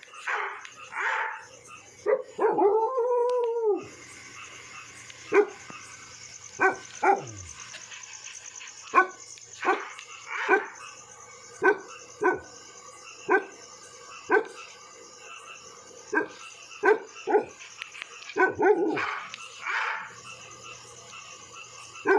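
Dog barking: a long drawn-out howl about two seconds in, then a string of single sharp barks roughly one a second, some coming in quick pairs. Another long howl starts right at the end.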